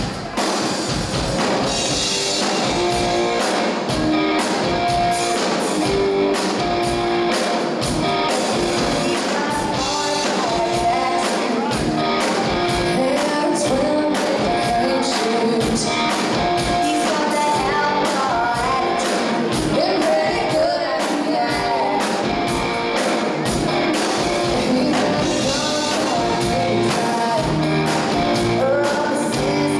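Live band playing: a woman singing lead over acoustic guitar, electric guitar and a drum kit, with a steady drum beat.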